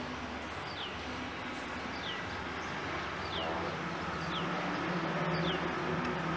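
A bird calling over and over, a short falling chirp about once a second, over a steady low hum.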